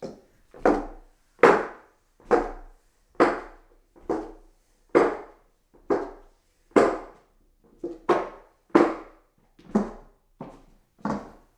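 Footsteps walking up hollow wooden stairs: a steady tread of roughly one step a second, each step a short wooden knock with a brief ring.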